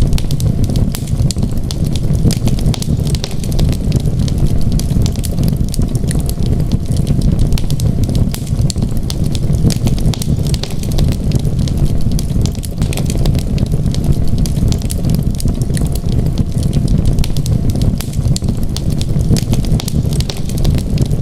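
Wood fire crackling continuously with dense, irregular pops and snaps over a steady low rumble.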